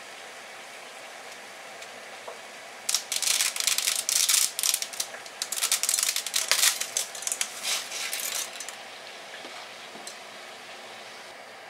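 A bundle of dry spaghetti snapped in half by hand: a dense crackle of many strands breaking, in two spells from about three to eight and a half seconds in, over the steady sound of water at a rolling boil.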